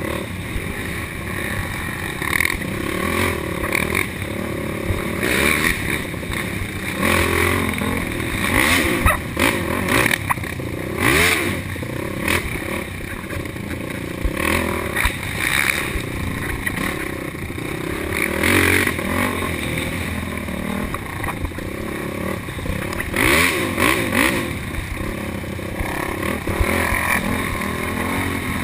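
Racing quad (ATV) engines revving up and down through the throttle, with repeated knocks and rattles of the machine over rough trail.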